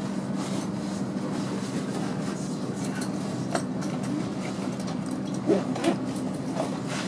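Hitachi Class 800 train heard from inside the passenger saloon while running at speed: a steady rumbling run with a low, even hum, and a few brief knocks from about halfway in.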